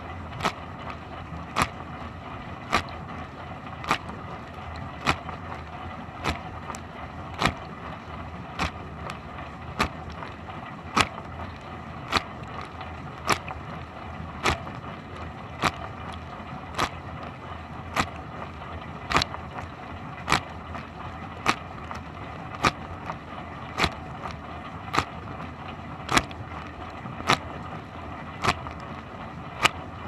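Dishwasher running its wash cycle, heard from inside the tub: a steady rush of spraying water with a sharp hit that repeats evenly a little faster than once a second.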